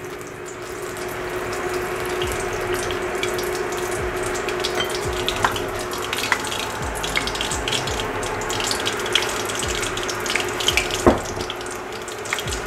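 Battered shrimp deep-frying in hot oil: a steady sizzle that builds over the first couple of seconds as the next pieces go into the oil, with scattered small pops and crackles.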